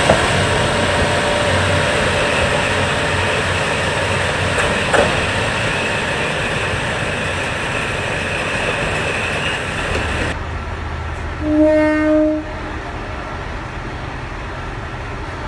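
KiHa 40-series diesel railcars running at a platform while one pulls out. Then a quieter background and a single train horn note, about a second long, sounds near the end.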